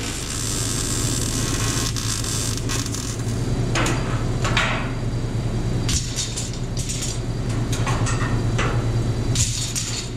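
Scattered metal clanks and knocks as steel tubing is handled and fitted into a car body's floor frame, over a steady low shop hum. A hiss of MIG welding dies away in the first two seconds.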